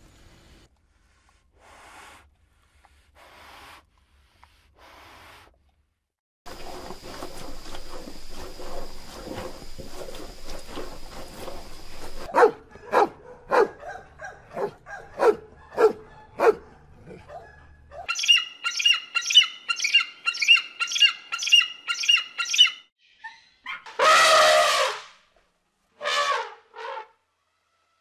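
A dog barking in a run of short barks, about two a second, followed by a few seconds of rapid high chirping and then a couple of loud calls.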